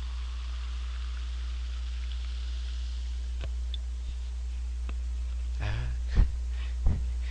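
Freshly opened bottle of Coca-Cola fizzing: a faint carbonation hiss that fades over the first few seconds. There are light clicks from the bottle being handled, then two sharper knocks near the end, with a steady low electrical hum underneath.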